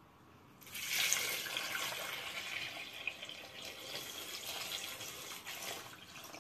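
Water poured from a measuring jug into a cooking pot of whole potatoes, splashing over them. It starts about half a second in, is loudest at first and tapers off near the end.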